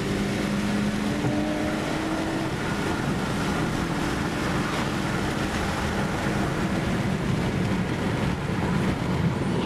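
Nissan 300ZX Z32's V6 with a full 72 mm exhaust under way at highway speed, heard from inside the cabin: the engine note climbs slowly over the first two seconds or so, then holds steady under road and wind noise.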